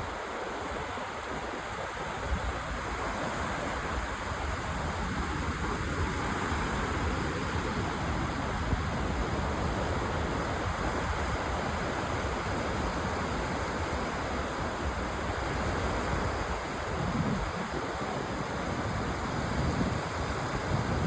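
Baltic Sea waves washing steadily onto the beach, with wind.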